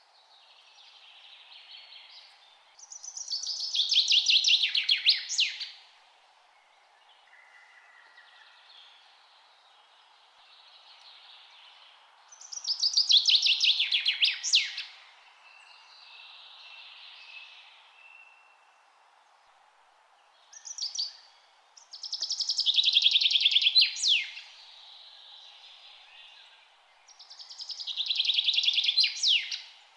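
Songbird singing a loud, fast trilled song about two to three seconds long that ends in a falling sweep, repeated four times, with fainter songs from other birds in between over a steady background hiss.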